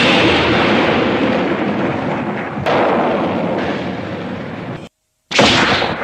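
Explosion-like anime sound-effect blasts. One is dying away as it begins, a second hits suddenly a little before halfway, and a third hits near the end after a brief silence. Each starts sharply and fades out slowly.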